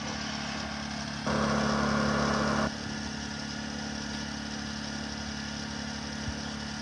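Honda EU2000i inverter generator running steadily. A little over a second in, a louder rushing noise rises over it for about a second and a half, then stops abruptly.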